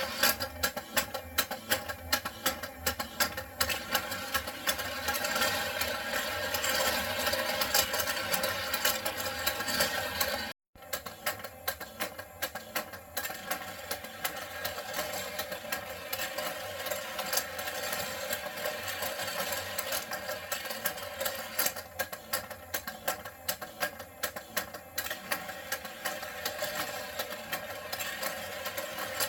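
Battery-powered puppy-race toy running: its small motor whirs while the moving plastic staircase clatters rapidly, carrying the toy dalmatians up. The sound cuts out for a moment about ten seconds in.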